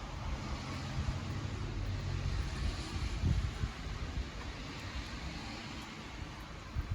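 Campfire burning with a steady hiss, under a low distant engine rumble that eases off after the first half. A soft knock about three seconds in.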